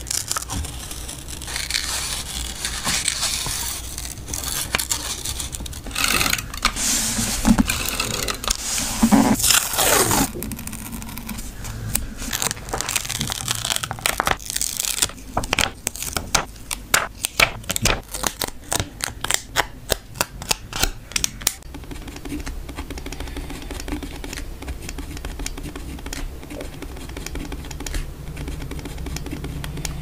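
Paper-craft sounds close to the microphone: scissors cutting through card, then a quick run of sharp clicks and crinkles as stickers are picked off a clear plastic sheet with tweezers, and from about two-thirds of the way in a softer steady scratching of a pen writing on paper.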